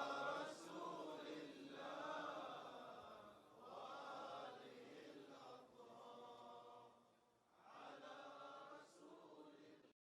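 Faint chanting voices in several drawn-out phrases, growing weaker and cutting off suddenly just before the end.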